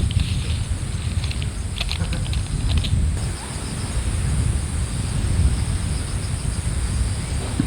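Strong seaside wind buffeting the microphone with a steady low rumble, with a run of light clicks and taps during the first three seconds.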